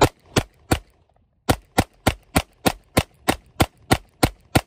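Rapid semi-automatic fire from a 9mm PSA Dagger pistol, a Gen 3 Glock 19 clone: three quick shots, a pause of under a second, then a steady string of eleven shots at about three a second.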